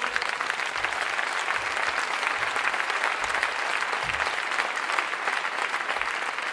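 Audience applauding steadily: many hands clapping together in a dense, even patter.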